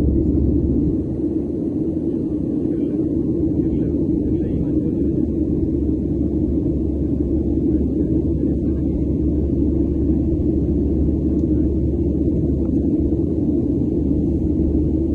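Steady low rumble of a jet airliner heard from inside the passenger cabin at a window seat: engine and airflow noise, even throughout with a slight drop about a second in.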